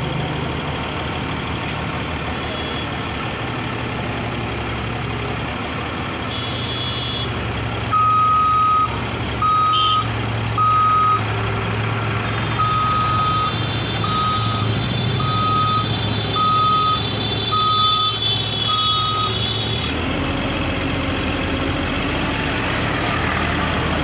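Heavy diesel engine of a 40-ton rough-terrain crane running steadily. Partway through, a high electronic warning beeper, like a reversing alarm, sounds about ten short beeps, roughly one a second.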